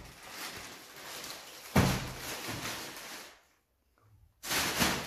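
Cardboard box and packaging being handled, with rustling and scraping and one loud thump about two seconds in; the sound drops out briefly near the end before the handling noise returns.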